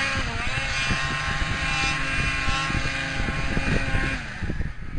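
Snowmobile engine revved hard, climbing to a high steady whine as the track spins in deep snow with the machine stuck. The revs drop off about four seconds in.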